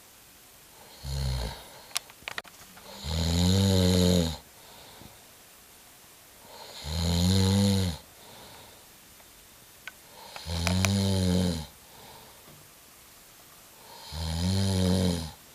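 Snoring: four long snores about every three and a half seconds, each rising and then falling in pitch, with a short snort about a second in.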